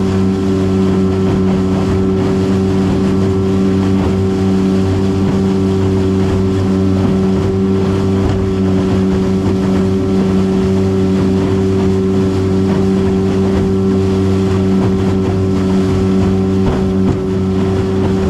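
Motorboat engine running at a steady high speed, holding one pitch, with water rushing and splashing against the aluminium hull as the boat crosses choppy waves.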